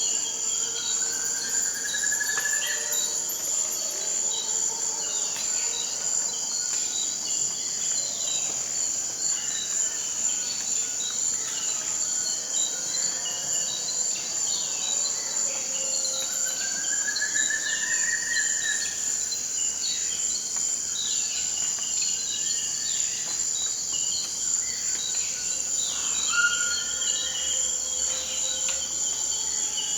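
Forest insect chorus: a steady, high, shrill hum of crickets. Birds call over it in short notes, and twice a long rising trilled call sounds, once about a second in and again around the middle.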